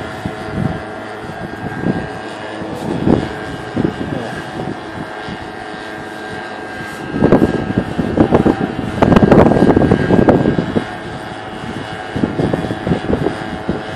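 Wind buffeting the microphone in irregular gusts, heaviest from about seven to ten seconds in, over a faint steady hum.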